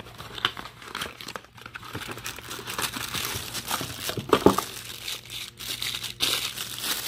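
Clear plastic bag crinkling and rustling as a hard glasses case wrapped in it is handled and pulled out of shredded paper box fill, with irregular sharp crackles throughout.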